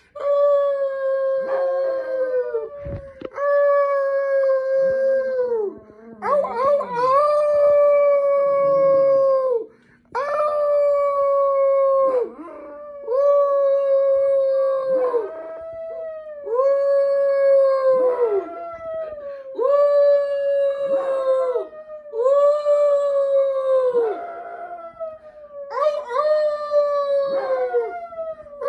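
Chihuahua howling in a series of about a dozen long howls, one roughly every two seconds. Each howl holds one pitch and drops away at the end.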